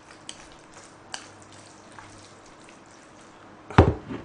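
Chopsticks mixing sticky jjajangmyeon noodles in black bean sauce in a bowl: faint wet squishing and scattered small clicks. Near the end comes one loud knock, as the bowl is set down on the table.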